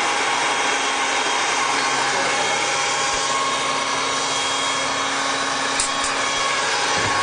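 Countertop blender running steadily as it purées frozen banana pieces with almond milk into banana ice cream, its motor whirring with the jar contents churning.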